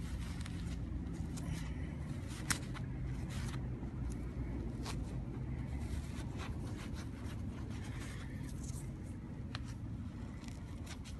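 Toothbrush bristles scrubbing a dirt-caked old wheat penny held in a gloved palm: scattered light scratching and small clicks over a steady low rumble.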